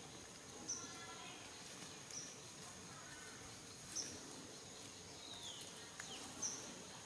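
Faint outdoor ambience: a steady high insect drone, with short high chirps and downward-gliding calls every second or two, a few faint clicks, and a brief pitched call about a second in.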